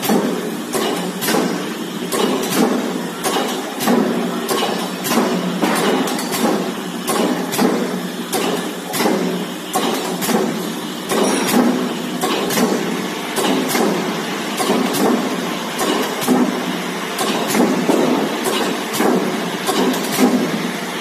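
Komatsu OBS-80-3B C-frame single crank mechanical press running: a steady mechanical din with frequent sharp clicks and knocks throughout.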